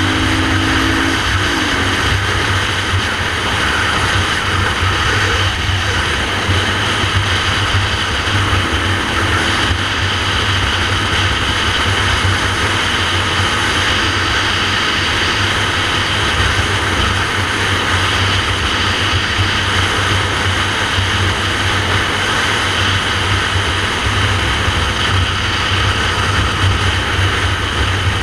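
Motorcycle engine running steadily at cruising speed, with steady wind noise rushing over the microphone.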